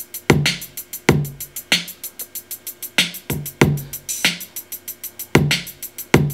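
Programmed drum loop playing back from a Native Instruments Maschine step sequencer: a fast, even run of closed hi-hats on every step, with snare and other heavier drum hits laid over it and an open hi-hat placed in the pattern.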